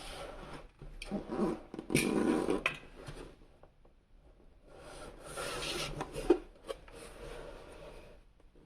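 Toy packaging being handled: cardboard and plastic rubbing and scraping in two spells a couple of seconds apart, with a few sharp clicks.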